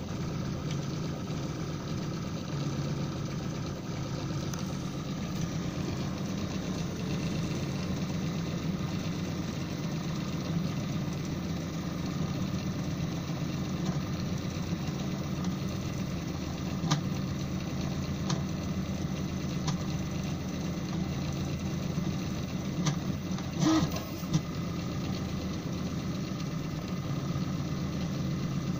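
Desktop FDM 3D printer running a print: its stepper motors drive the print head and bed in a steady mechanical drone. A few short sharp ticks come through in the second half.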